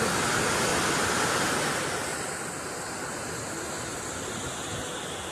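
Steady rushing noise of a flash flood: fast brown floodwater running through a street under heavy rain. It eases a little about two seconds in.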